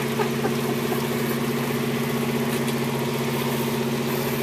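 Fishing boat's engine idling with a steady, even hum.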